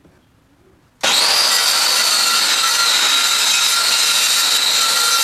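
Handheld circular saw cutting through a wooden sheet, starting abruptly about a second in: a loud, steady high whine over the rasp of the blade in the wood, dipping slightly in pitch as the blade takes the cut, then holding.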